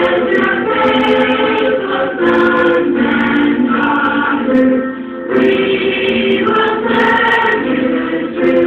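Choir singing held chords in phrases of a few seconds, with short breaks between them.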